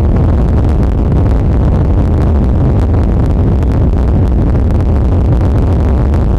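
Steady, loud rumble of a car driving on a dirt road, heard from inside the cabin, with frequent light ticks.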